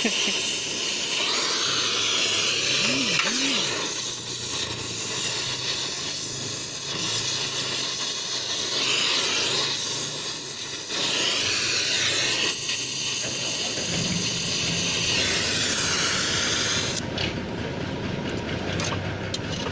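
Gas welding torch hissing as its flame heats a steel motorcycle side stand while a lever is welded on, the hiss swelling and easing as the torch is worked. The hiss cuts off near the end when the flame is taken away.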